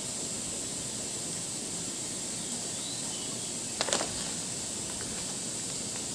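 A bite into a slice of yellow watermelon: a short cluster of wet clicks about four seconds in, over a steady high hiss.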